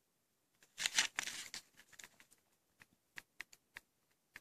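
Small cardboard box handled and turned over in the hand: a short scraping rustle about a second in, then a string of light, separate clicks.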